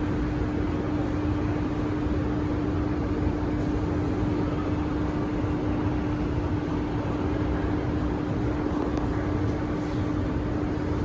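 Cabin running noise of a Kawasaki–CRRC Sifang CT251 metro train travelling between stations. There is a steady rumble with a constant hum that does not change in pitch.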